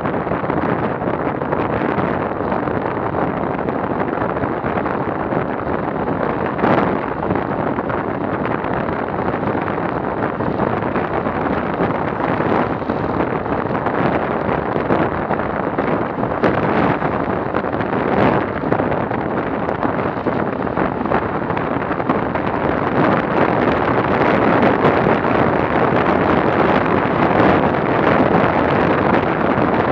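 Wind rushing over a handlebar-mounted action camera's microphone on a road bike moving at 40–50 km/h, a steady noise that grows a little louder in the last third as speed rises, with a few brief swells.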